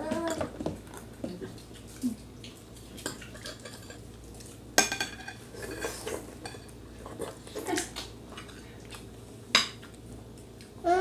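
Metal forks and spoons clinking and scraping on ceramic plates during a meal, with scattered light clinks. A louder, ringing clink comes about halfway through.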